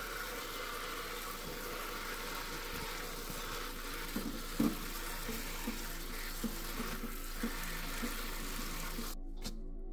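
Tap water running onto green onions in a stainless steel colander in a sink, with light knocks as a hand turns the onions over to wash them. The water stops briefly near the end.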